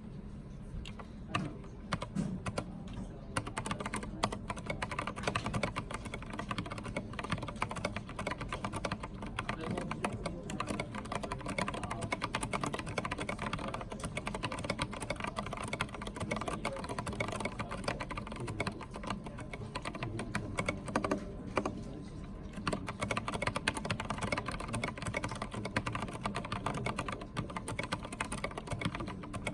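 Typing on a Filco Minila mechanical keyboard with Cherry MX Brown switches and thick high-profile double-shot ABS keycaps: a continuous, fast run of key clacks. The keystrokes are sparse for the first few seconds, and there is a brief pause about three-quarters of the way through.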